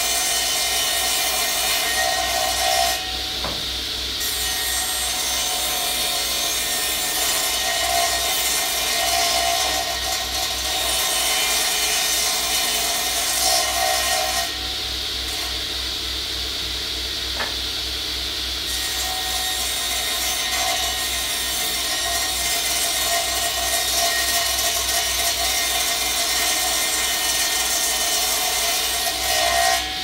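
Table saw running and cutting through boards, a steady motor hum under the loud hiss of the blade in the wood. The high cutting noise eases briefly a few seconds in and again about halfway through.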